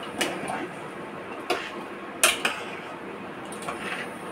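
A utensil clinking against the side of a stainless steel cooking pot while spaghetti is stirred in the water: a few sharp, separate metallic knocks, two of them close together about two seconds in.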